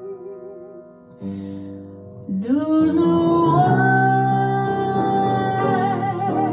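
Piano chords ring on their own; about two seconds in, a singing voice slides up into one long held note with vibrato, over the piano accompaniment.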